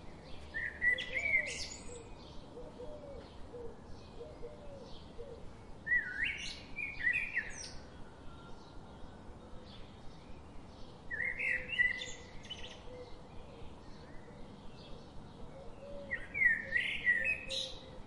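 A songbird singing short warbled phrases that start low with quick rising and falling notes and end in a high twitter. There are four phrases about five seconds apart, with quick faint high chips going on between them.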